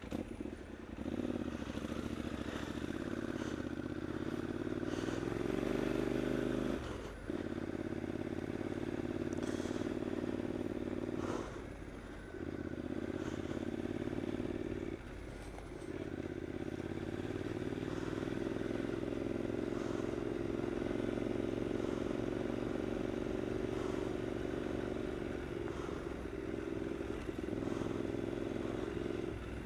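2015 Triumph Scrambler's 865 cc air-cooled parallel-twin engine running under way on a dirt track, the throttle easing off briefly three times, at about a quarter of the way in and twice around the middle, with light clatter over the rough ground.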